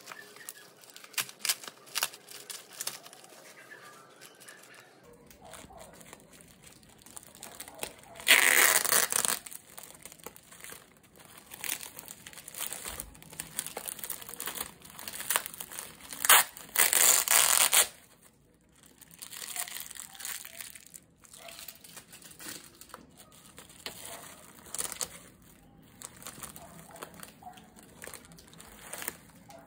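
Bubble-wrap mailer and plastic wrapping crinkling and rustling as hands open the package and pull the binder out, with louder crinkling twice, each lasting a second or two.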